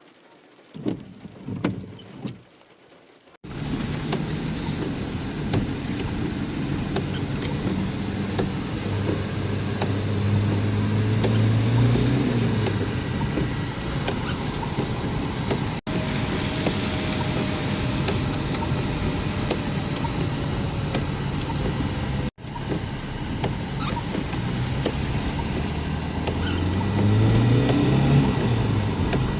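A few short knocks, then a motor engine running steadily with a rushing noise over it; its pitch rises and falls twice, as if revved up.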